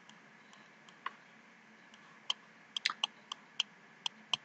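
Faint series of light, sharp clicks and taps from the tool used to write on screen while the handwriting is drawn: a few scattered clicks, then a quicker run of about ten from about two seconds in.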